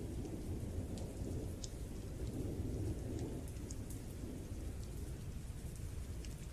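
Rainstorm ambience: steady rain with a low rolling rumble of thunder and scattered faint crackles.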